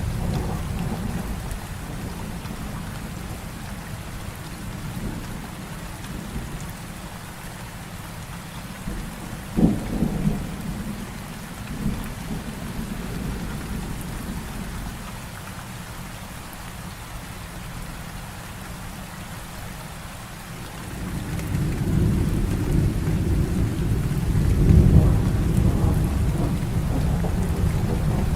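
Heavy rain falling steadily, with a sharp thunder crack about ten seconds in and a long, deep thunder rumble that builds up past the middle and peaks shortly before the end.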